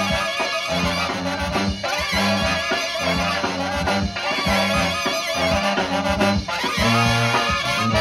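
Live brass band playing: trumpets, trombones and saxophones over a sousaphone bass line and drum kit, with short punchy bass notes in a steady rhythm. About seven seconds in, the band holds a long low chord.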